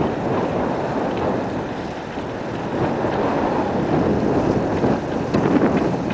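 Wind buffeting the microphone of a camera carried on a moving bicycle: a low rushing that swells and eases, with a few light clicks about five seconds in.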